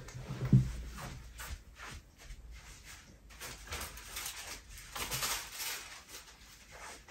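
Sheets of paper rustling and shuffling as they are handled and sorted, in short, irregular bursts with a few light knocks.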